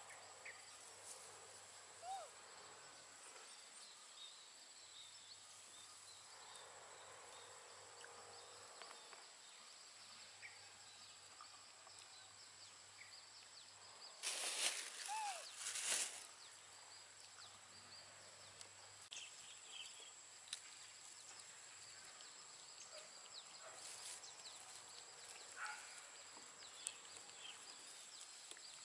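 Faint outdoor field ambience: a thin steady high-pitched tone over a soft hiss, with scattered small chirps. A short arched squeak comes about two seconds in. About halfway, there are two seconds of much louder noise with another squeak.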